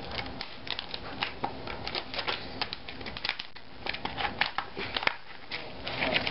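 Poultry scissors snipping through hard plastic packaging while the plastic crackles as it is bent and handled. The sound is a rapid, irregular run of sharp clicks and snaps.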